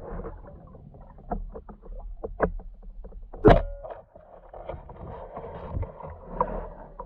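Muffled underwater sounds heard through an action camera's waterproof housing: scattered knocks and clicks, and one loud clunk that rings briefly about three and a half seconds in.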